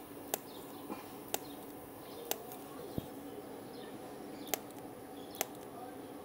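DC TIG welding arc from a Dynaweld TIG 200B inverter welder running in plain TIG mode at about 150 amps: a steady, quiet hiss and hum, with sharp clicks roughly once a second.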